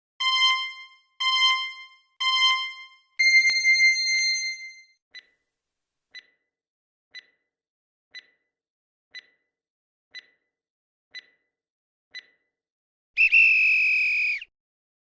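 Countdown timer sound effect: three short electronic beeps a second apart and a longer, higher beep, then eight soft ticks once a second, ending in a loud alarm tone about a second long.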